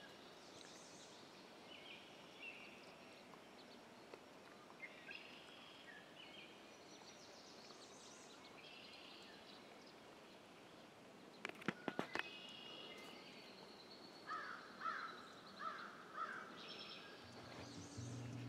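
Faint woodland birdsong: scattered bird calls and chirps over near-quiet background. A few sharp clicks come about twelve seconds in, and guitar music starts at the very end.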